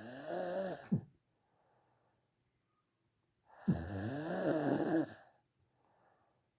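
A person snoring loudly: two long snores about three and a half seconds apart, each with a wavering pitch. The first ends in a sharp click, and faint breaths follow each snore.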